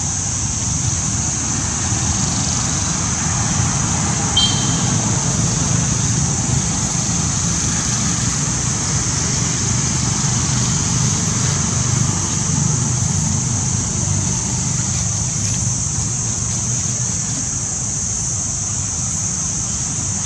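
Steady outdoor background noise: a low rumble under a constant high-pitched hiss, with one brief high chirp about four seconds in.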